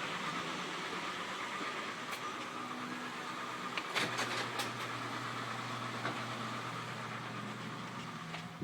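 Ford Explorer 4.0-litre SOHC V6 idling steadily just after a rear timing-chain tensioner and cassette replacement. It runs quiet, without timing-chain rattle, but a little rough. A few clicks, and a knock about four seconds in.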